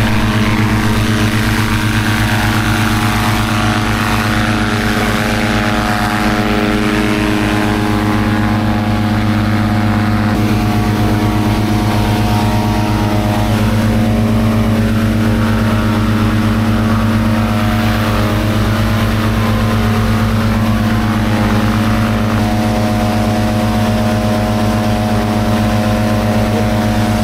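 Petrol-engine inflator fan for a hot-air balloon running loudly and steadily at constant speed, with a fast, even low throb.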